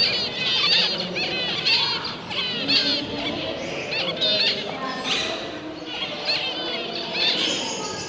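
Zebra finches and other small cage birds calling: a dense string of short, high calls, several a second, overlapping throughout.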